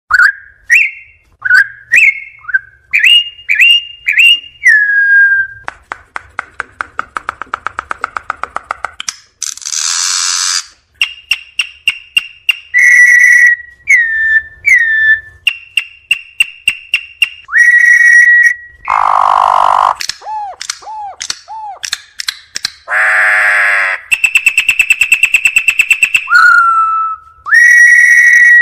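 Campo troupial (corrupião) singing: a long series of loud, clear whistled notes and phrases that slide up and down in pitch. Fast rattling runs of notes and several harsh, buzzy calls are mixed in.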